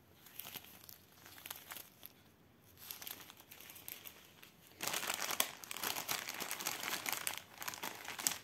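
Small plastic zip bags of diamond-painting drills crinkling as they are handled, faint at first and much louder and denser from about five seconds in.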